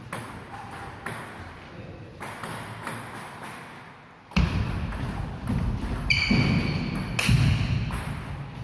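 Table tennis ball clicking off bats and table during a rally in a large, echoing hall. About halfway through, a louder low rumble sets in suddenly, with a short high squeak during it.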